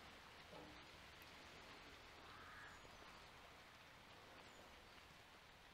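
Near silence: faint outdoor background, with a distant bird calling once about two and a half seconds in.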